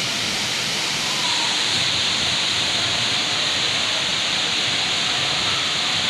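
A tall plunge waterfall, dropping about 100 m down a rock cliff into a pool, making a steady rush of falling water. It gets slightly louder about a second in.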